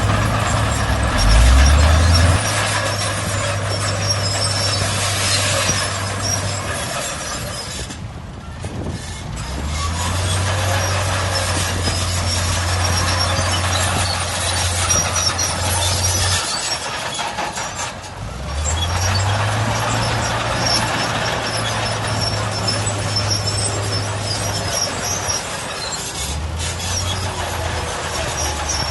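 Heavy diesel engines of dump trucks and earthmoving machinery working. The engine note rises and holds for several seconds, then drops away in short lulls before revving up again, over a constant mechanical clatter.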